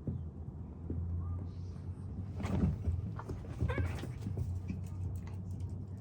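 Domestic cats fighting: a burst of yowling and hissing lasting about a second and a half, a little before the middle.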